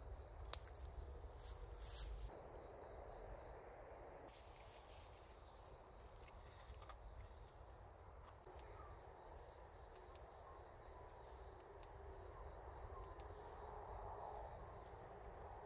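Faint, steady high-pitched chorus of chirring insects with a fine pulsing trill. A few light clicks in the first couple of seconds.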